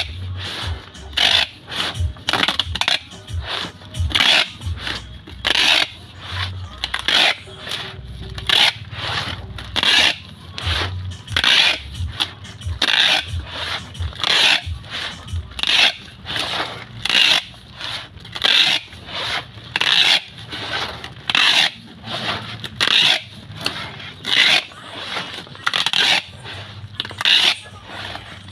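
Brown packing tape being pulled off a handheld tape dispenser and wound round a parcel, in short, evenly repeated strokes of the tape unrolling, about three every two seconds.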